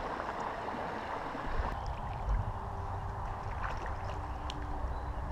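Small river water running over a shallow bed, a steady rush, with a low rumble coming in about a second and a half in.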